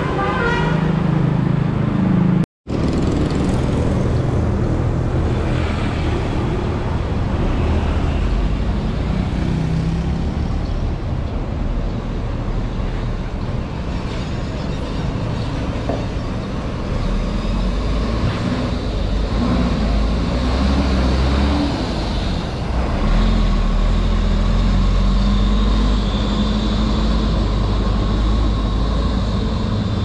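A bus's telolet musical air horn sounding its last notes, ending about a second in. After an abrupt cut, steady traffic noise and a large bus engine running, its low rumble growing heavier near the end as a tour bus pulls away.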